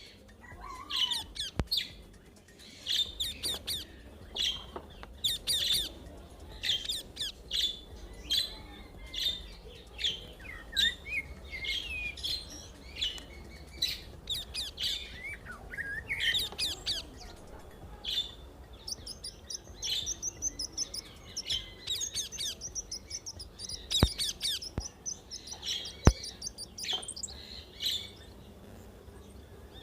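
Small birds chirping and tweeting in quick, repeated short calls throughout, with two sharp clicks near the end.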